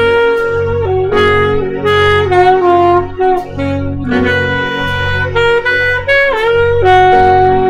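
Saxophone playing slow, held melodic notes over a backing accompaniment of an E-flat major chord, dwelling on the A-flat (the fourth) to show the tension it makes against the chord. One note bends down about six seconds in, and a low pulse in the accompaniment repeats about once a second.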